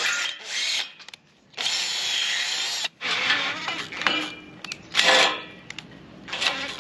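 Cordless drill boring a hole in the boat's solar panel arch, running in several short bursts with one longer steady run in the middle.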